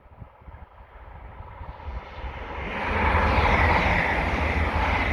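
A modern passenger train approaching at speed on the main line and going by, a rushing, rumbling noise that builds over about three seconds and then stays loud.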